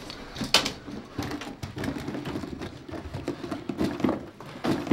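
Hurried handling noise: an irregular string of clatters and rustles as bundles of cash are grabbed off metal shelving and stuffed into bags, with one sharp knock about half a second in.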